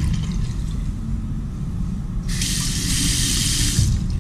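Water from a single-lever mixer tap running into a washbasin: a light flow at first, turned up to a full splashing stream a little after two seconds, then shut off abruptly near the end. A steady low rumble sits underneath.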